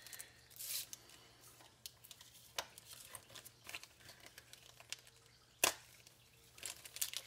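Plastic packaging of a small 40mm cooling fan crinkling and rustling in short bursts as it is opened and handled, with one sharp tap about five and a half seconds in.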